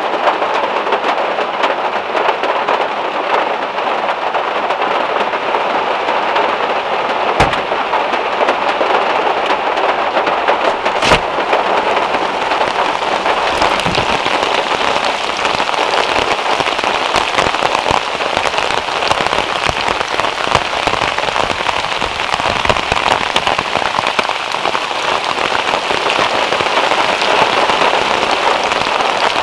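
Steady rain falling on a car, with two sharp knocks about seven and eleven seconds in.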